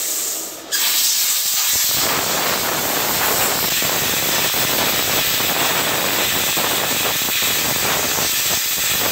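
Wire-feed welder arc crackling and sizzling steadily as it welds thick metal. The arc strikes under a second in, after a brief hiss.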